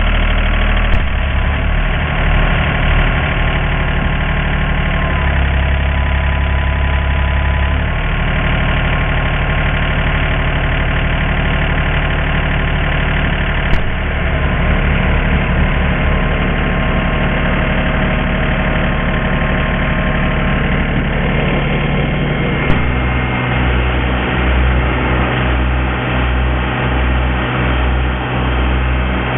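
Tractor engine idling steadily. About three quarters of the way through, its low note turns lumpy and uneven, and three brief clicks are heard.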